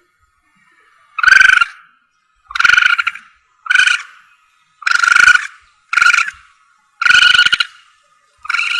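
Looped animal lure call for civets (musang): seven short, high, harsh calls repeated about once a second.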